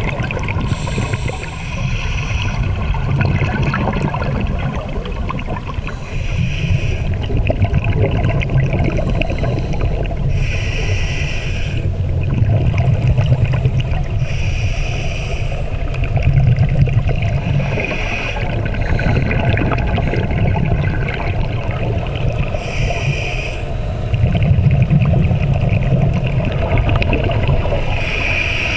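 Scuba diver breathing through a regulator underwater, heard through the camera housing: a short hiss on each inhale and a low bubbling rumble of exhaled bubbles, in a slow cycle of about one breath every four seconds.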